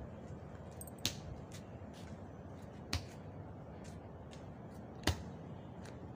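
Bare feet landing on a concrete floor as a child jumps from circle to circle: three sharp slaps about two seconds apart, over a steady background hiss.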